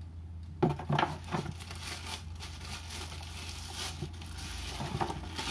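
Clear plastic wrap crinkling and rustling as it is pulled off a motorcycle exhaust silencer, starting about half a second in.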